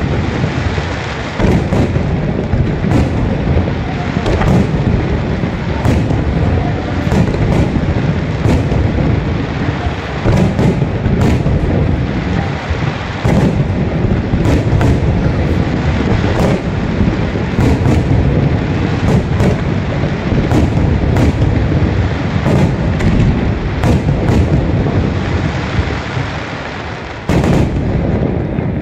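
Aerial firework shells bursting in a dense, continuous barrage of booms and sharp cracks. The barrage thins briefly near the end, then a fresh loud burst comes.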